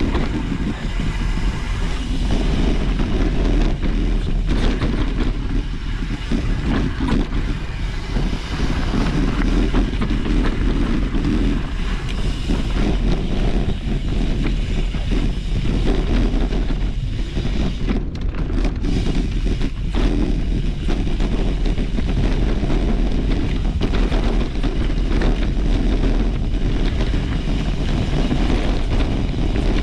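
Wind rushing over the microphone of a camera on a mountain bike riding a trail, with the rumble of the tyres and frequent small rattles and knocks from the bike over rough ground.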